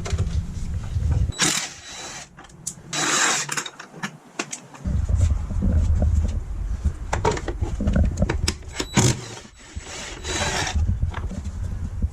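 A socket tool working the 10mm bolts of the Honda TRX450ER's heel guard loose, in several short bursts of tool noise, over a low rumble.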